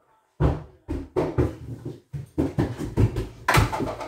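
Quick, irregular thumps and knocks, about four or five a second, starting half a second in: a small child's running footsteps on bare wooden floorboards.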